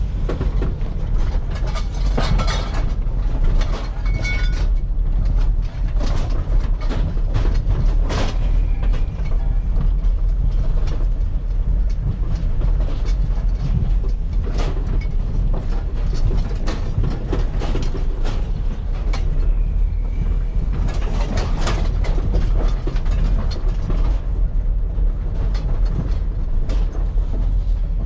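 Vehicle on the move, heard from inside: a steady low engine and road rumble, with the scrap metal load in the back rattling and clattering over the bumps.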